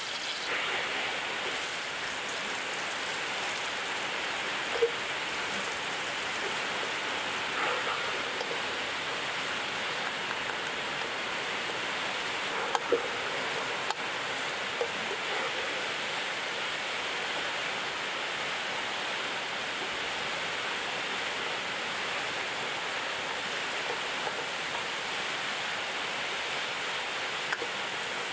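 Hot oil sizzling steadily in a wok as sliced chillies, lemongrass and garlic are stir-fried, with a few sharp clicks.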